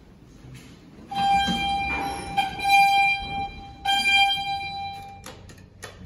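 An electronic buzzer sounds a steady high tone for about four seconds, broken briefly twice, followed by a couple of sharp knocks near the end.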